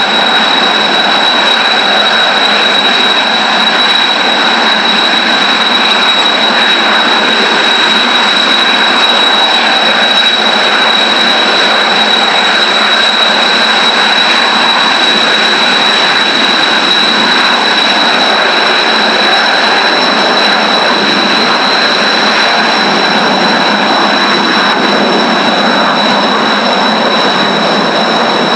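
Jet engines running steadily on the ground, with a constant high-pitched whine over a broad rushing noise.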